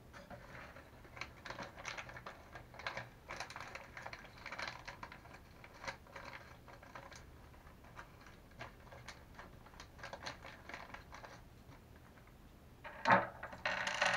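Small parts for a Traxxas Revo 3.3's shocks being handled and fitted: irregular light clicking, tapping and rustling. About 13 seconds in there is one sharp knock, followed by a louder burst of rustling.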